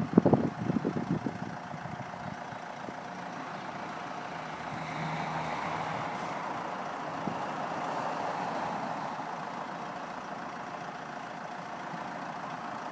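Steady electric motor hum with a faint constant whine from an Autochair Lite roof-top wheelchair hoist, swelling slightly midway.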